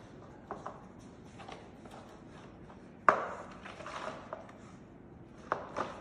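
Pug puppy knocking and pushing a cardboard egg carton treat box across a tiled floor: scattered light taps, a sharp knock about three seconds in followed by a second of scraping and rustling, and two more knocks near the end.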